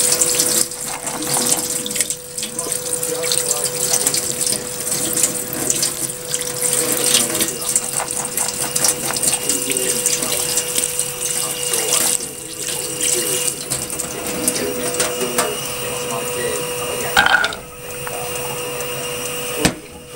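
Tap water running onto peas in a plastic colander and splashing down into a stainless steel sink as the colander is moved under the stream, with a steady hum underneath. The flow breaks briefly near the end.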